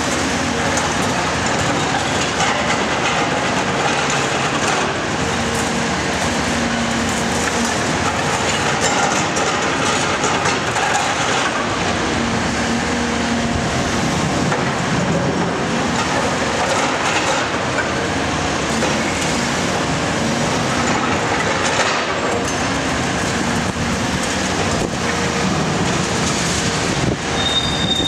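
Cat 340SB demolition excavator working its Cat MP 345 multi-processor in concrete rubble: the diesel engine and hydraulics run under load amid a continuous crunching and clattering of concrete and metal. A brief high squeal comes near the end.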